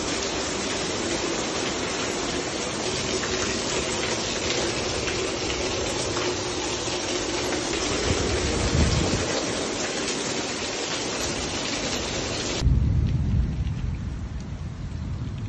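A hailstorm: hail and rain pelting down in a dense, steady hiss and clatter, with a low rumble about nine seconds in. Near the end the sound cuts abruptly to a quieter low rumbling with the hiss gone.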